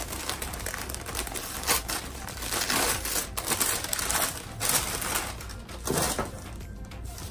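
Paper wrapping crinkling and rustling as a bundle of clothes is unwrapped by hand, with louder crackles now and then.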